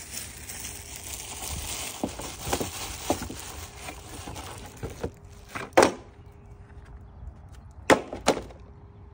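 Parts being handled during an engine air filter change: the old pleated paper filter and the airbox are rustled and scraped, with a scattering of sharp clicks and knocks. Two loud knocks come about six seconds in and about eight seconds in.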